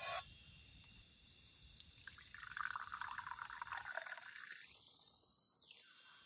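A drink poured from an aluminium bottle into a cup, splashing for about two and a half seconds from about two seconds in, after a short clink near the start. Crickets chirp steadily behind it.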